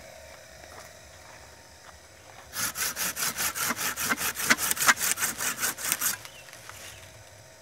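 Hand pruning saw cutting through a stem of a potted mango tree: quick back-and-forth strokes, about five a second, starting about two and a half seconds in and stopping about six seconds in.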